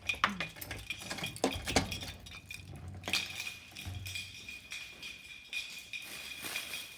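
Small hard objects clinking and knocking as they are handled, with scattered sharp clicks; from about three seconds in a steady high tone sounds behind them.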